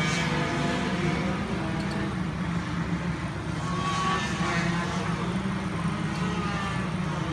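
Racing engines running steadily as vehicles lap a circuit during a race.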